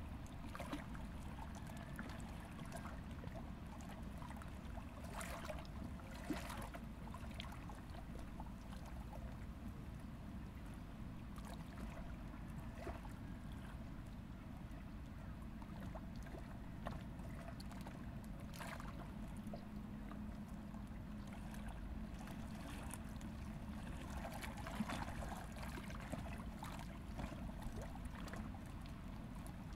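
Faint riverside ambience: gentle water lapping and trickling at the bank over a steady low rumble, with a few soft splashes now and then.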